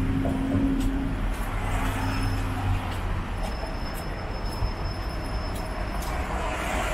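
Steady rumble of road traffic, cars and a bus, running across the bridge's road deck. A thin high whine sounds for a few seconds in the middle.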